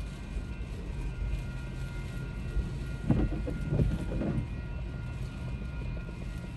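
Railroad crossing warning bell ringing steadily over a low rumble of wind and rain, with a couple of gusty swells partway through. The crossing is going off with no train present, a malfunction blamed on the storm.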